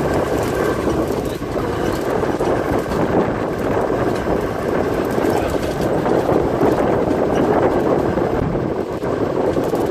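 Steady rumble of a vehicle driving.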